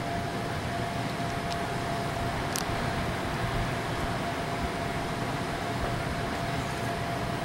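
Steady mechanical hum and rush with a faint constant whine, like ventilation or engine noise, broken by two faint clicks about a second apart.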